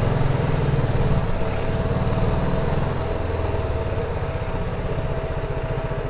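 BMW G310GS motorcycle's single-cylinder engine running at low revs as the bike rolls slowly. It makes a steady, rapid low pulse that eases off a little about halfway through.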